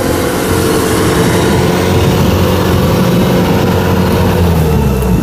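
Kubota DC-105X rice combine harvester running steadily at close range: a continuous engine sound with several held tones and no change in speed.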